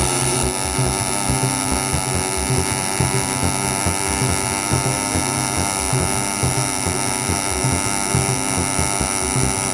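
Pulsed MIG/MAG welding arc from an EWM Alpha Q inverter welder laying a weld bead: a steady, high-pitched buzz with an uneven low crackle underneath.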